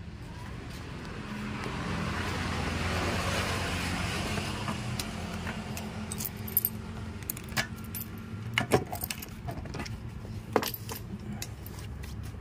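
Keys jangling and sharp metallic clicks as the key is turned in a Yamaha NMAX's fuel-tank filler cap lock and the cap is opened, with several clicks in the second half. An engine hums steadily underneath.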